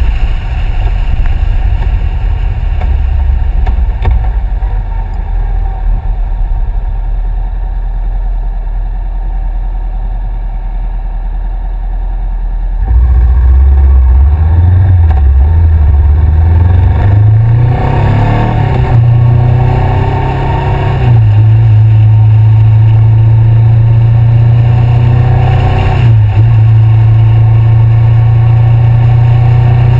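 2013 Honda CBR500R's parallel-twin engine through a Two Brothers aftermarket exhaust, ridden on the road. For the first dozen seconds it runs quieter, off the throttle at low revs. About halfway through it gets louder, the engine note rising in steps as the bike accelerates, then settles to a steady cruise with one brief dip.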